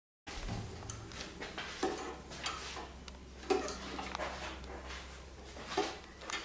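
Small metal parts of a sharpening jig and setting tool being handled: several separate clicks and knocks over a low steady hum.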